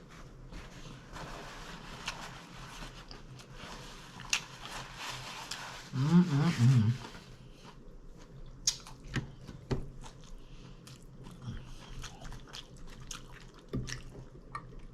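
A person chewing a mouthful of taco salad at close range, with scattered wet mouth clicks, and a hummed "mm-mm-mm" of enjoyment about six seconds in.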